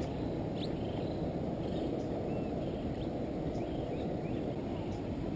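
Steady low background noise with a few faint, short animal chirps scattered through it.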